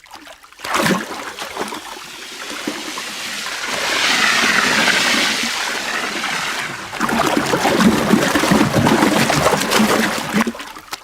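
Water rushing and splashing: a hissing rush swells up to its loudest in the middle, then gives way to dense, churning splashes that die out near the end.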